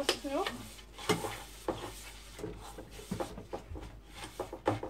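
Gloved hands pressing soft dough into a metal springform tin, with irregular scraping, squishing and light knocks against the pan.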